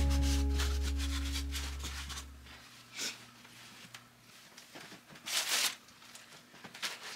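The last chord of a background music track dies away over the first two and a half seconds. Then there is a quiet room with a few faint, short noises, the loudest about five seconds in, and small clicks near the end.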